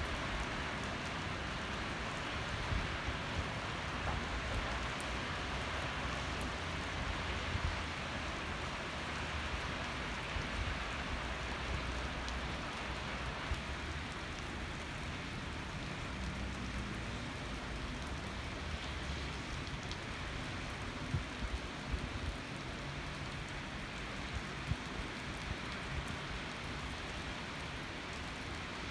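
Steady rain falling, an even hiss with scattered sharp drip ticks and a low rumble underneath.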